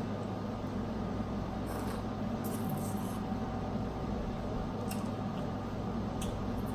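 Snow crab shells being cracked and picked apart by hand: a few short crackles and clicks, a cluster about two to three seconds in and single ones later, over a steady low hum.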